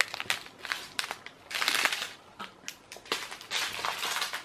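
Plastic packaging crinkling and rustling as it is handled, with small clicks between two longer rustles, one about a second and a half in and one near the end.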